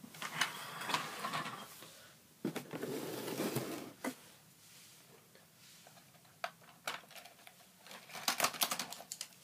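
Rustling handling noise, then small sharp plastic clicks and rattles, thickest near the end, as die-cast toy cars are pushed into the plastic launcher of a Hot Wheels Blaster Rig toy truck.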